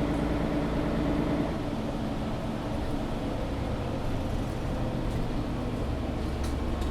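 Mercedes-Benz O530 G articulated city bus heard from inside the passenger cabin while driving, a steady low engine and road rumble.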